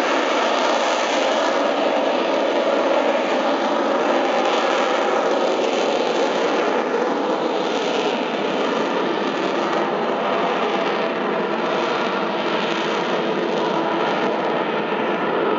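AV-8B Harrier II's Rolls-Royce Pegasus turbofan running in slow, nose-high vectored-thrust flight: a loud, steady jet roar. Its hiss sweeps up and down in pitch around the middle as the jet moves across.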